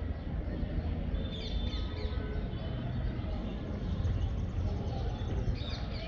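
Birds chirping in the trees, a flurry of quick high chirps about a second in and again near the end, over a steady low background rumble.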